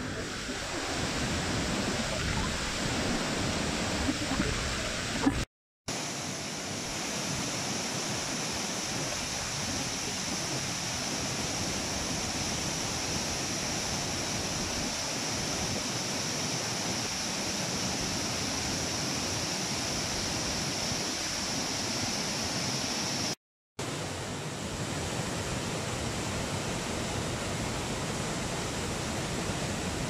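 A large waterfall in heavy flood flow: a steady rush of water pouring over rock and through rapids. It breaks off for a moment twice, about five seconds in and again near the end.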